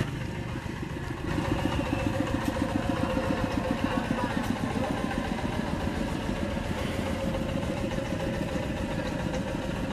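Single-cylinder diesel engine of a two-wheel hand tractor running with a fast, even beat. It gets louder about a second in, then holds steady.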